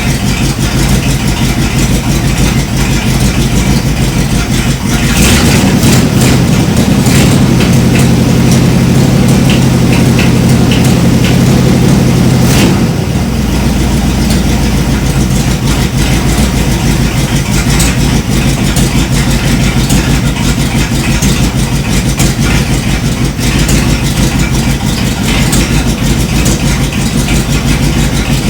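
1978 Dodge Power Wagon engine running steadily. About five seconds in it runs louder and higher for some seven seconds, then settles back to a steady idle.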